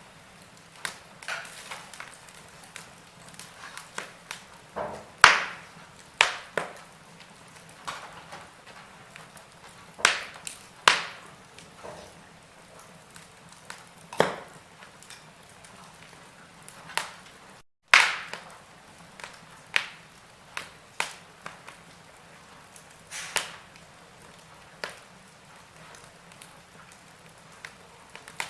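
Wood fire in a fireplace crackling: irregular sharp snaps and pops, a few much louder than the rest, over a faint steady hiss. The sound cuts out for a split second about two-thirds of the way through.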